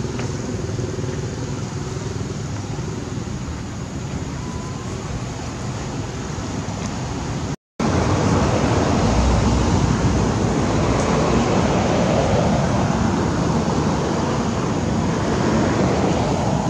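Steady outdoor background rumble and hiss, with no clear single source. It cuts out briefly about eight seconds in, then comes back louder, with a heavier low rumble.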